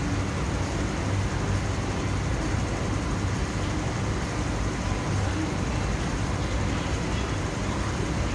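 Steady low hum with an even rush of air, from an MTR South Island Line S-Train standing with its equipment running, mixed with underground station ventilation.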